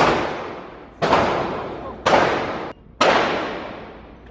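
Gunshots at a shooting range: four shots roughly a second apart, each a sharp crack followed by a long echoing decay.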